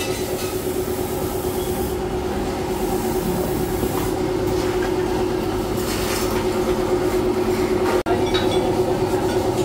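Steady hum of a workshop machine running, with a constant mid-pitched tone over even noise and a few faint clinks of metal parts being handled.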